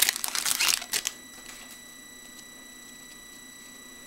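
A trading-card pack wrapper crinkling as it is torn and handled for about the first second, then only a steady high-pitched whine from a PC fan.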